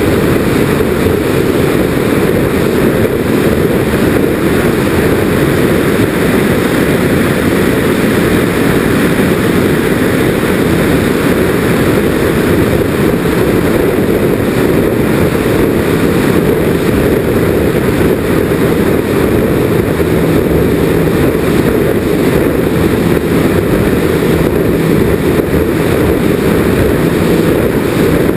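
Steady loud drone of a Nitroplanes Grand Cruiser RC twin's motors and propellers in flight, heard from a camera on the airframe and mixed with air rushing over the microphone. A low steady hum comes up about halfway through.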